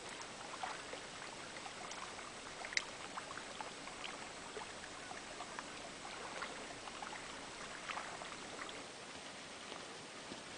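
Faint outdoor ambience: a steady, even hiss, like distant running water or wind, with a few brief high ticks scattered through it.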